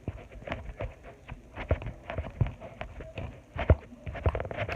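Homemade glue-and-detergent slime being kneaded and pulled by hand: irregular sticky clicks, snaps and squelches, several a second, as the slime is still setting up.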